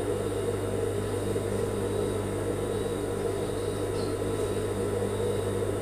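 Industrial sewing machine motor humming steadily, with no clear stitching rhythm.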